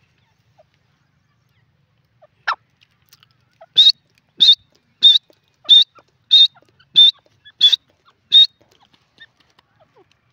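Grey francolin calling: one short falling note, then a run of eight loud, high-pitched notes repeated evenly about two-thirds of a second apart.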